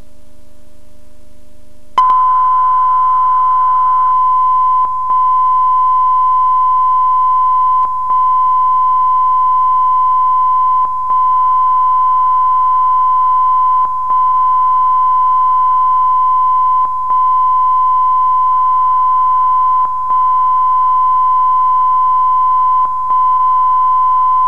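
Channel 4 test-card line-up tone: a loud, steady, high-pitched sine tone that switches on sharply about two seconds in. It dips briefly about every three seconds. Before it starts there is a quieter low hum.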